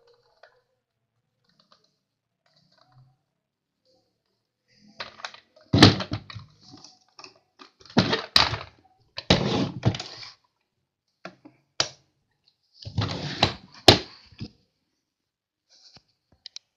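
Plastic Hess toy trucks being handled and moved, clattering and clicking in three bursts of a second or two, with a few single sharp clicks between.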